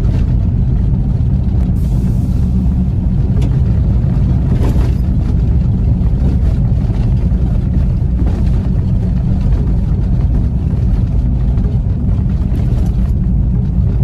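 Steady low rumble of a car driving, heard from inside the cabin: engine and tyre noise on the road.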